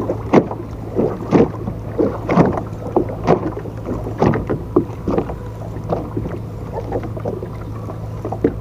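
Noises from a small boat on the water: a steady low hum under irregular knocks and splashes. The knocks come about once a second in the first half, then fainter and more scattered.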